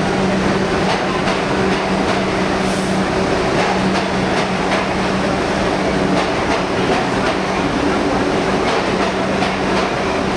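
New York City subway train running alongside the platform in the station: steady rumble with a humming drone and repeated clacks of the wheels over the rail joints.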